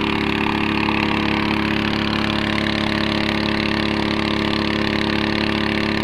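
A small engine running steadily at an even idle-like speed.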